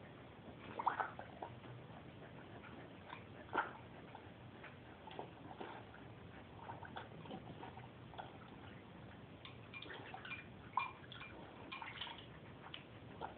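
A beagle-mix puppy with her muzzle in a water bowl, blowing bubbles and splashing the water: irregular small splashes and bubbling pops, with a few louder splashes.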